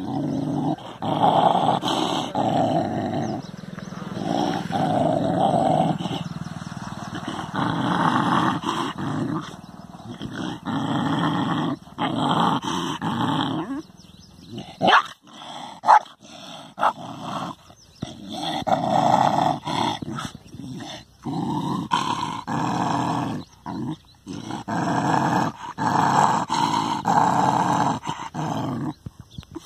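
A dog growling in long, rough bouts broken by short pauses, with two sharp clicks about halfway through.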